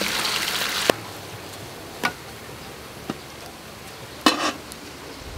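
Rice sizzling in a hot wok as it is stirred with a metal spatula, cutting off sharply about a second in. After that a quieter hiss with a few short metal clinks of cookware, the loudest about four seconds in.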